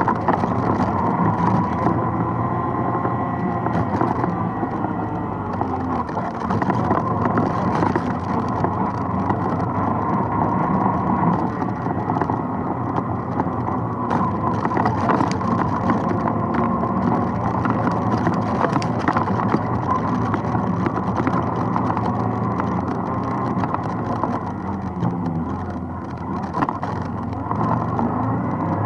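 ATV engine running steadily, its pitch wavering slightly with the throttle, with frequent rattles and knocks from the machine bouncing over rocks and roots on the trail.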